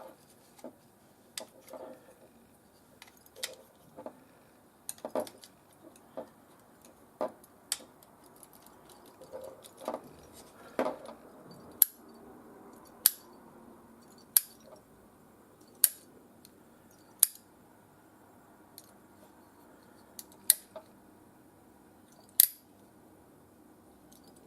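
Sharp mechanical clicks from a multimeter's rotary range switch being turned from position to position, one detent at a time, while the repaired meter's display is checked. The clicks come about one every second and a half through the middle, with a couple more near the end.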